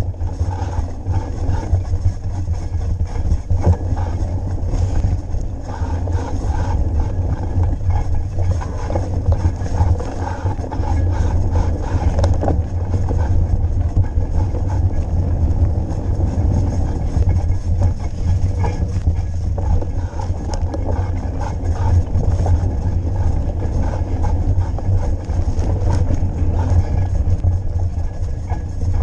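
Mountain bike being ridden, with steady wind rumble on the microphone over tyre noise and faint rattles from the bike.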